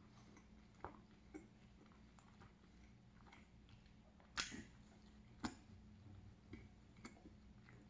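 Faint mouth sounds of a person eating a soft filled mini donut: a few soft clicks of biting and chewing over near silence, the sharpest about four and a half seconds in.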